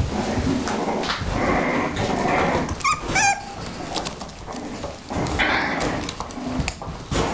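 Six-week-old bulldog puppies whimpering and yipping as they play, with a short run of high-pitched yelps about three seconds in, amid scattered clicks and rustles.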